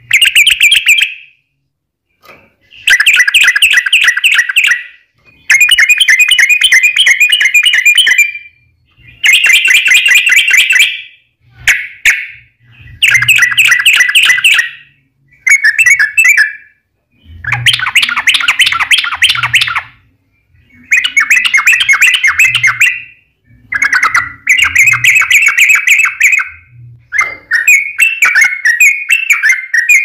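Yellow-vented bulbul (trucukan) singing a long run of rapid, chattering phrases. There are about ten bursts of fast notes, each one to three seconds long, with short pauses between them.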